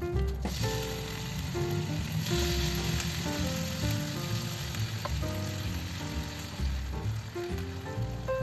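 Bacon frying in an oiled nonstick pan: a steady sizzle that grows louder about two seconds in. Light background music plays underneath.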